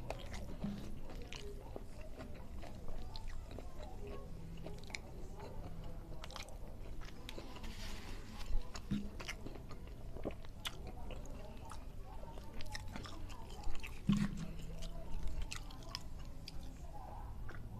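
Close-miked chewing of a mouthful of rice and vegetables eaten by hand: wet, smacking mouth clicks throughout, a few louder ones about halfway and two-thirds through.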